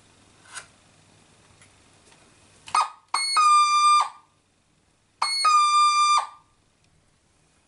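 Casio DH-100 digital horn sounding two held electronic notes through its speaker, each about a second long and a second apart, with a short blip just before the first.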